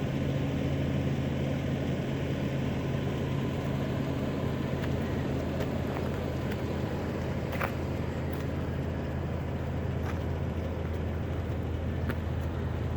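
A car engine idling, a low steady hum, with a few faint clicks.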